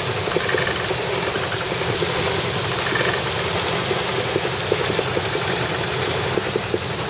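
Small sailing boat's motor running flat out against a strong incoming tide, a steady engine drone with no let-up.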